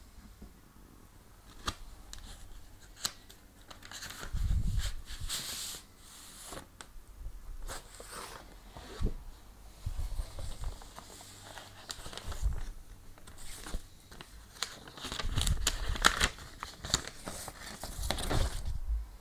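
A vinyl LP's cardboard jacket and paper inner sleeve being handled and slid apart, with irregular rustling and scraping and a few small clicks and knocks. The busiest stretch comes near the end.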